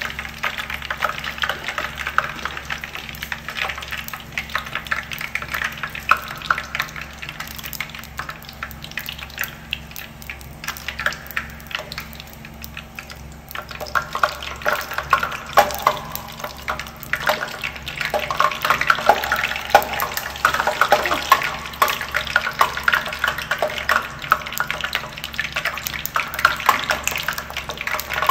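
Prawn crackers deep-frying in hot oil in a pan: a steady crackling sizzle that eases off briefly near the middle, then crackles louder again.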